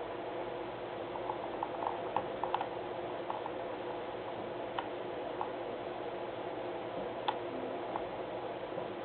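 Small sharp clicks of a computer mouse, a quick run of them about a second in and then single clicks every second or two, over a steady background hum.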